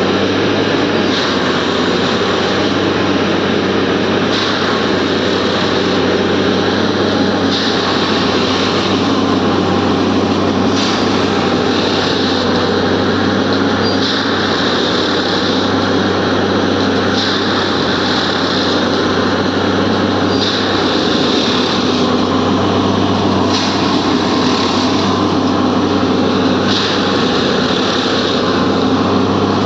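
Railway track maintenance machine working: its engine runs steadily, and a hissing surge comes roughly every three seconds in a regular repeating work cycle.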